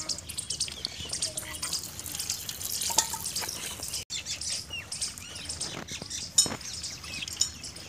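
Small birds chirping repeatedly, over wet dripping sounds from a water buffalo feeding at a trough and then being hand-milked into a metal pail.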